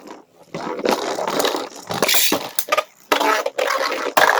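Beyblade spinning tops whirring and clashing in a plastic stadium: a scraping, grinding noise broken by many sharp clicks as they hit each other and the stadium wall. It is loudest near the end.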